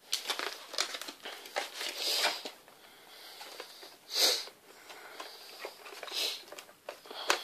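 Plastic and cardboard packaging being handled: crinkling, rustling and small clicks as a camera box is slid about and worked out of its clear plastic sleeve, with a few louder scraping rustles.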